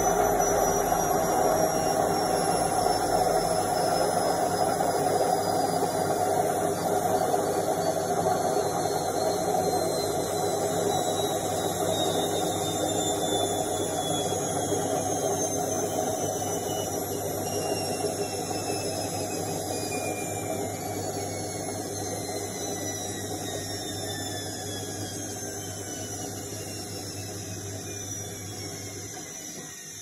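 Indesit front-loading washing machine winding down at the end of its spin cycle: a motor whine falling steadily in pitch over a low hum as the drum slows, the whole sound gradually fading. The low hum cuts out near the end.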